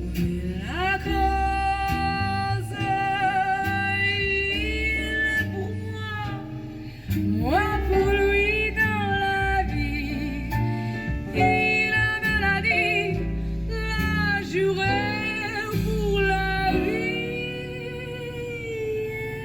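A French chanson with a female voice singing long, wavering notes over guitar and bass, played through a Haval H6's aftermarket Blam component speakers and slim subwoofer.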